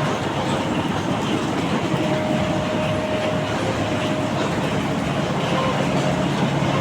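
Heavy machinery running steadily: a continuous dense noise with a low hum.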